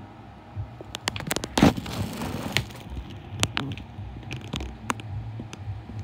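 A string of irregular sharp knocks and clicks, most of them bunched in the first few seconds, over a low steady hum.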